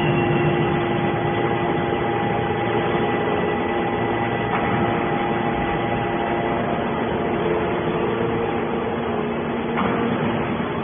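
Fully automatic horizontal hydraulic baler running: a steady machine hum with a few held tones over noise.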